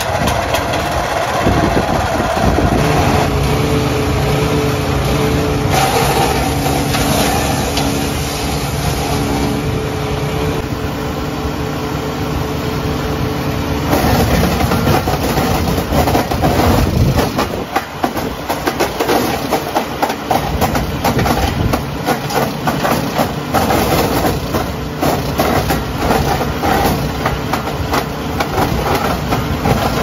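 A Forestwest 120mm wood chipper's 15 hp petrol engine runs steadily. From about halfway, branches are fed in and chipped, a dense rapid crackle of the blades cutting wood over the engine.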